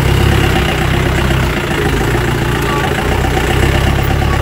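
Off-road jeep's engine running as it drives along a rough, muddy dirt track, the engine note easing briefly in the middle.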